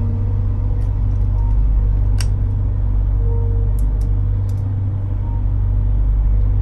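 Dark ambient background music with a steady low drone and slow held tones. Over it come a few small sharp clicks from hand cutters snipping a small fitting, the loudest about two seconds in and a quick cluster near the middle.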